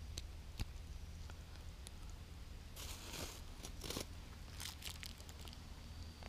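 Close handling noise from hands working small fishing tackle: faint rustling and crinkling with scattered small clicks. A longer crinkly rustle comes about three seconds in and another near four seconds.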